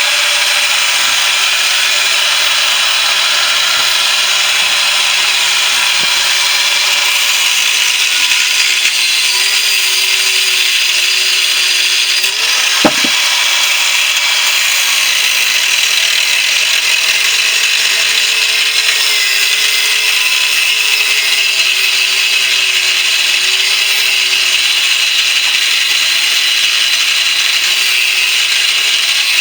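Power tool cutting steadily into a central air conditioner compressor's steel shell, a continuous harsh hiss with the motor's pitch wandering under load. One sharp knock about thirteen seconds in.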